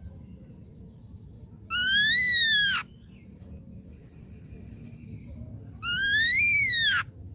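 Ashy drongo calling: two long whistled notes about four seconds apart, each rising and then falling in pitch.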